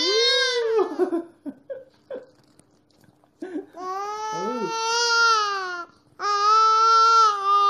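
A nine-month-old baby's long, drawn-out vocal cries, three in all: one trailing off about a second in, then two more of about two seconds each.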